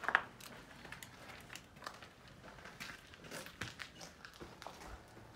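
Footsteps crunching and scuffing over debris-strewn floor, irregular small clicks and crackles, with one louder knock near the start.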